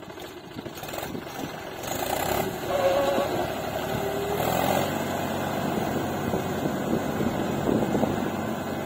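Tractor engine running, getting louder about two seconds in and then holding a steady hum.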